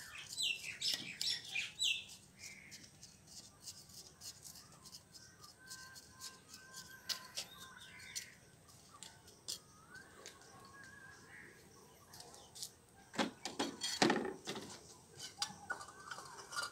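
A knife scraping and prodding dry, lumpy potting soil in a terracotta pot, loosening it around the plant's base, in short scratchy strokes with a louder burst of scraping about thirteen seconds in. Small birds chirp in the background, mostly in the first two seconds.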